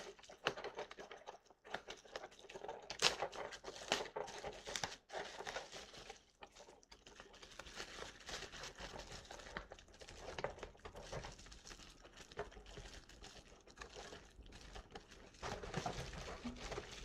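Faint handling noise: soft rustling and crinkling with scattered light clicks as a vintage plastic action figure is turned over and examined by hand.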